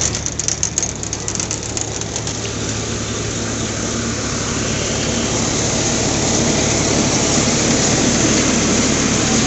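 Paddy dehusking machine running off a Swaraj 735 FE tractor, the tractor's diesel engine working hard under load, with a dense hiss of husk and grain rattling through the machine that gets steadily louder. A patter of sharp clicks in the first two seconds.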